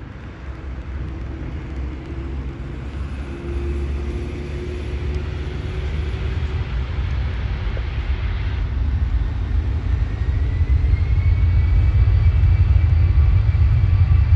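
Boeing C-17 Globemaster's four turbofan jet engines rumbling and growing steadily louder, with a high whine rising about two-thirds of the way in and then holding.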